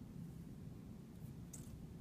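Faint steady low room hum, with two short, faint clicks a little past halfway.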